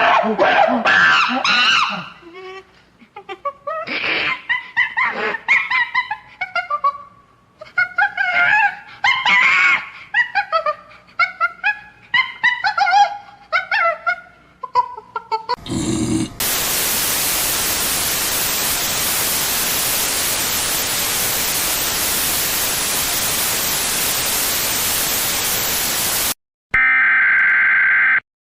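Noise-music collage: a string of short, choppy, pitch-bending animal-like cries. About sixteen seconds in, a wall of harsh static noise cuts in, holds for about ten seconds and cuts off abruptly. It is followed by a steady electronic alert tone, broken by a short gap, of the kind that opens an emergency broadcast.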